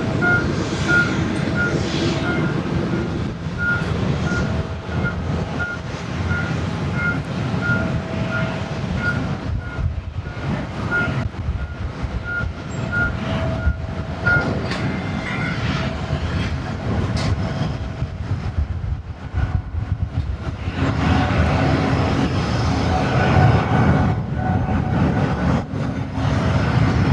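A ground vehicle's reversing beeper sounds about twice a second for roughly fifteen seconds, then stops, over a steady rumble of airport apron noise. The rumble grows louder in the last few seconds.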